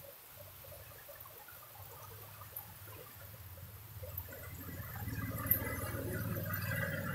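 An auto-rickshaw's engine gets louder from about four seconds in as the three-wheeler drives through flooded mud, with its tyres splashing, over steady rain.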